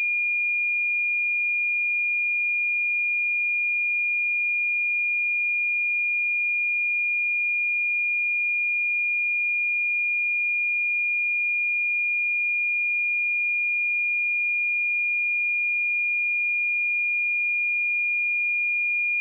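A pure 2422 Hz sine-wave test tone, one steady high-pitched note held at constant level.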